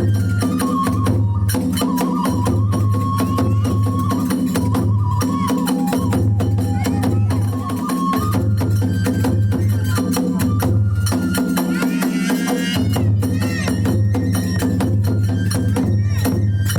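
Kagura hayashi ensemble playing: steady beating on the big drum, clashing hand cymbals and a bamboo flute melody above them.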